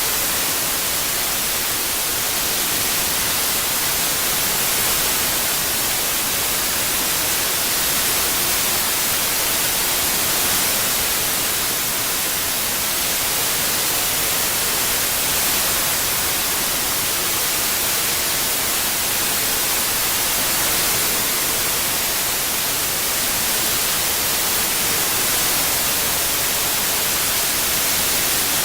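Synthetic white noise, mixed as 8D surround audio, playing as a steady, even hiss that is strongest in the treble, with no breaks or changes.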